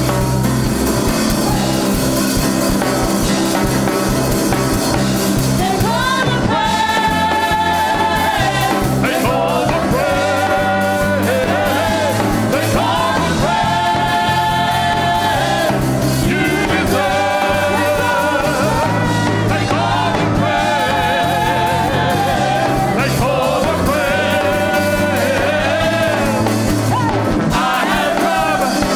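Live church band playing an upbeat praise song on drum kit and keyboard, with voices singing the melody, clearest from about six seconds in.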